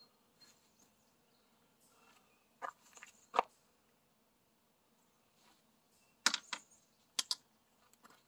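Nylon strap of a bimini top being pulled through its buckle and tightened by hand: a handful of short, sharp rasps and clicks in two clusters, one about a third of the way in and one past the middle.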